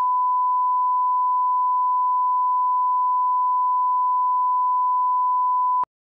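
Steady 1 kHz line-up test tone, the reference tone played with colour bars at the head of a tape, cutting off suddenly near the end.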